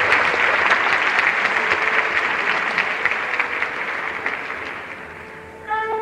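Concert audience applauding and cheering, dying away over the seconds; near the end a held instrument note comes in.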